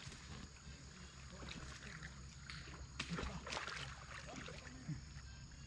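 Water splashing in a shallow river while a hooked salmon is being played: a few short splashes, the sharpest two about three seconds in and a smaller one near the end, over a faint steady hiss.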